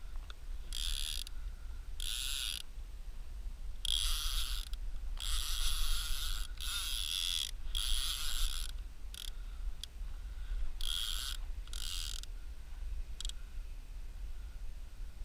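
Drag of a conventional trolling reel buzzing in repeated short runs, from half a second to a second each, as a hooked fish pulls line off the spool. The runs come thickest in the middle, then thin out, and the last brief one comes about 13 seconds in.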